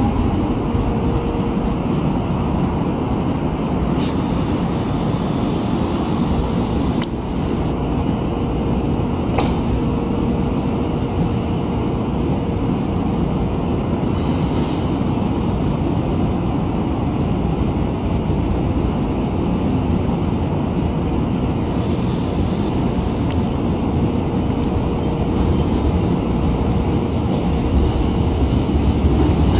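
Electric commuter train running at a station: a steady rumble with a faint hum, and a few sharp clicks in the first ten seconds.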